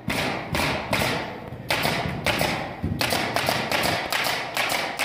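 An uneven series of sharp knocks, a few per second, each dying away quickly.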